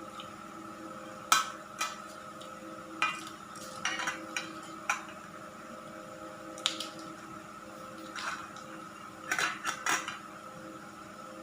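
Utensils clinking and knocking against dishes and bowls in short, irregular strikes, with a quick cluster of knocks near the end. A steady hum runs underneath.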